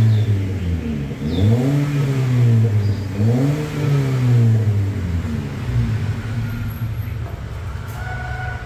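Toyota Agya 1.2's four-cylinder engine revved in three quick blips, each rising and falling, then settling back to a steady idle. The exhaust note is heard through a trial muffler held at the tailpipe before fitting.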